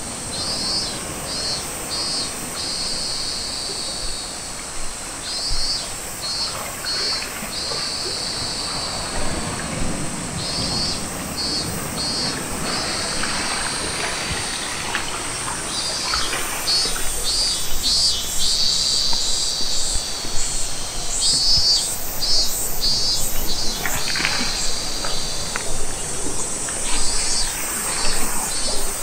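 Insects chirping: short pulsed chirps repeating in small groups over a steady high-pitched trill, with a steady low noise beneath.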